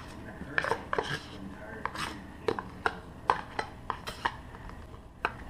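A table knife scraping and tapping cream cheese out of a plastic tub: an irregular string of about a dozen sharp clicks and knocks.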